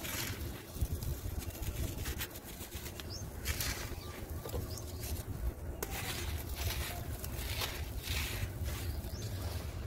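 Gritty sand blocks crumbling in bare hands, with loose sand and grit pouring and trickling through the fingers: repeated dry, hissing rushes with small ticks of grit. A steady low rumble runs underneath.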